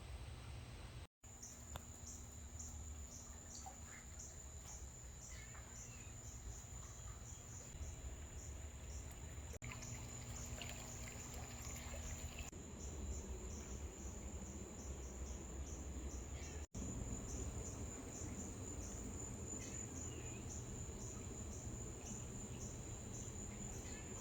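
Crickets chirping steadily, a high pulsing trill of about three pulses a second, over a low steady hum.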